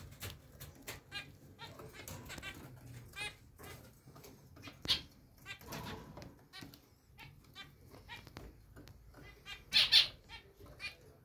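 Zebra finches calling: a string of short, repeated calls, with two louder calls close together near the end.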